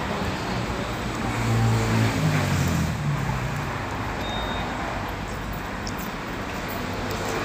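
Road traffic: a motor vehicle's engine passes, swelling and fading about two seconds in, over a steady traffic hum.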